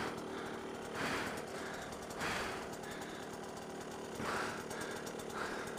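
Dirt bike engine idling faintly and steadily with a fast, even pulse, while the rider breathes hard, with deep breaths about one, two and four seconds in.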